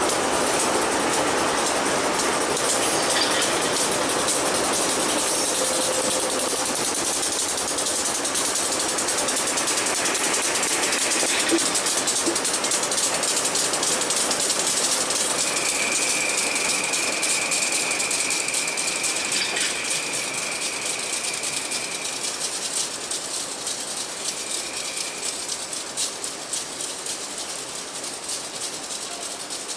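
Providence and Worcester freight train's diesel locomotives running as the train passes and draws away, with its wheels rattling over the rails. A steady high squeal sets in about halfway through, and the sound gradually fades as the train recedes.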